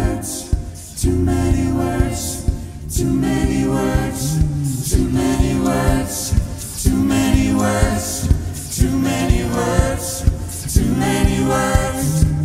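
A cappella vocal group singing: a lead voice over sustained chords from the other singers, the chords changing about every second, with a steady percussive beat that, with no instruments on stage, comes from the singers' own vocal percussion.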